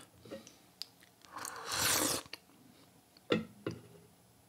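An airy slurp of hot tea drawn in through the mouth, lasting about a second, followed by two light clicks.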